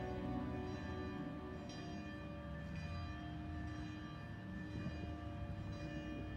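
Soft music with ringing bell tones, a few fresh notes struck one after another and left to ring on.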